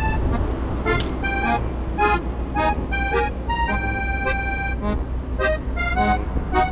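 Background music: a melody of short and held notes over a steady low rumble.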